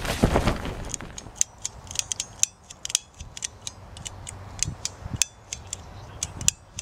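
The closing hit of a short music sting, then a run of sharp, irregular clicks and ticks, a few each second.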